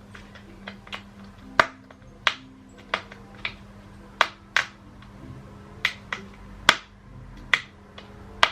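Irregular sharp clicks and taps of flat-pack desk parts and fittings being handled and knocked together, about a dozen spread over several seconds.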